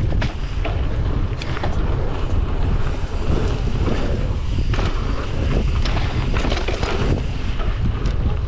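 Wind buffeting the camera microphone during a fast mountain-bike descent: a steady low rumble, with tyres running over dirt and gravel and frequent irregular knocks and rattles from the bike over rough ground.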